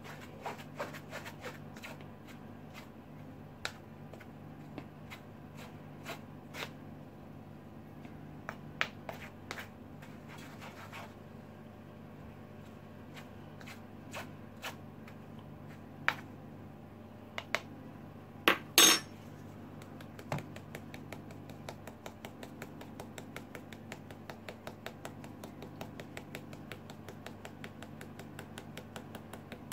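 Flour being sifted: a metal spoon scrapes and clicks against the mesh of a plastic-rimmed sieve, with one louder knock a little past halfway. In the last third the sieve is tapped in a fast, even run of light taps to shake the flour through.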